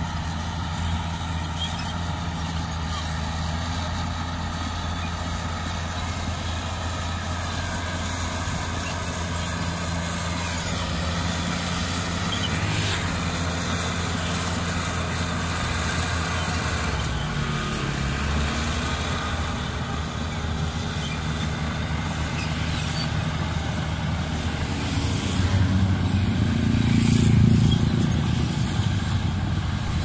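Caterpillar D6R crawler bulldozer's diesel engine running under load as it pushes dirt, a steady low drone. Its pitch dips and recovers briefly about halfway through. The sound swells louder for a few seconds near the end.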